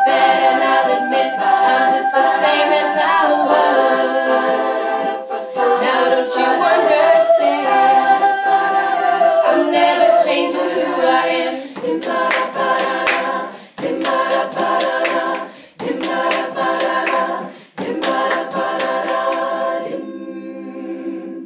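Women's a cappella group singing in close harmony without instruments. Sustained chords give way to short phrases that break off about every two seconds, and it ends on a softer held chord.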